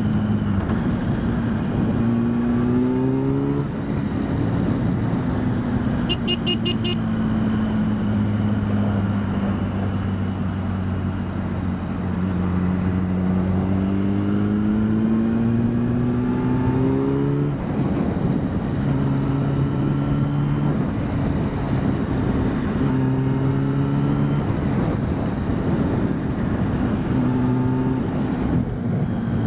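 Motorcycle engine running at highway speed over wind rush and road noise. The revs climb and drop back with gear changes, once early on and once about seventeen seconds in. A brief high pulsing tone sounds about six seconds in.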